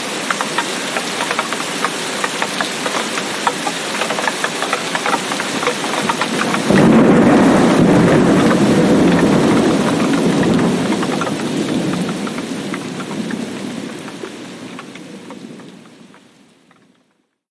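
Heavy tropical rain falling, with many distinct drop hits. About seven seconds in, a thunderclap breaks into a long low rumble that slowly dies away, and the whole sound fades out to silence near the end.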